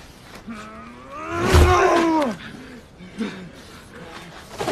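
A man lets out a long straining yell about a second in, with a heavy thud landing under it. A short grunt follows, and another yell starts at the very end.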